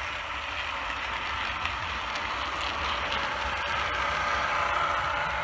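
OO gauge model train running along the track, a steady mechanical whir that grows a little louder near the end.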